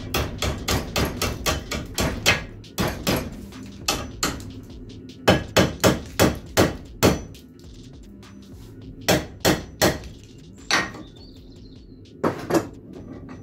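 Hammer striking a forged metal fire poker clamped in a bench vise. Sharp blows come about four a second at first, then in short bursts with pauses between them.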